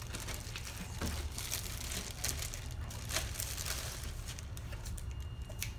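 Black plastic poly mailer bag crinkling and rustling as it is handled and pulled open, in an irregular run of crackles that is busiest for the first four seconds or so and then thins to a few lighter rustles.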